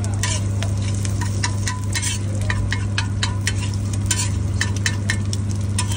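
Metal spatula tapping and scraping on a large flat metal griddle in quick irregular clicks while egg fries on it. A steady low hum runs underneath.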